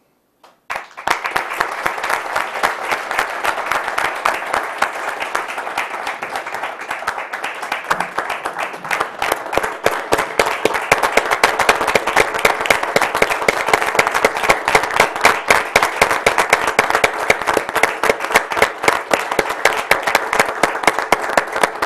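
Audience applauding: many hands clapping densely and without a break, starting about a second in and growing a little louder over the next several seconds.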